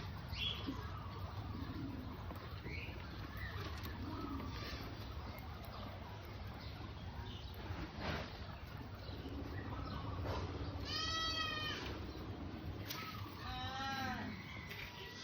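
Guinea pigs squealing: one drawn-out call about eleven seconds in and a quick run of short squeaks a couple of seconds later, over a low steady background noise.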